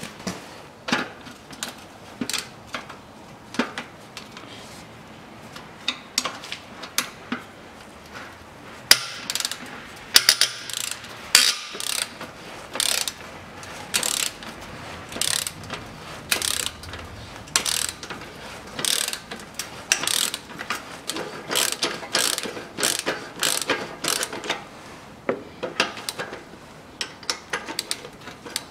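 Hand ratchet wrench clicking in repeated runs of strokes as the nut on an exhaust pipe clamp is undone, the loudest and busiest in the middle.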